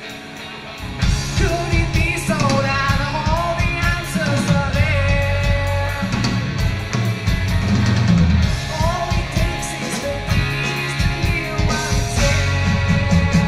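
Live rock band playing through a club PA: electric guitars, bass and drums, with a male singer's voice over them. The full band comes in hard about a second in after a quieter lead-in.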